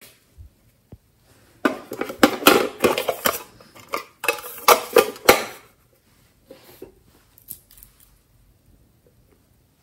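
A small glass nail polish bottle clinking and clattering against a toy storage case as it is handled and taken out, in two bursts of quick clicks and knocks. Then a few faint clicks as the bottle's cap is unscrewed.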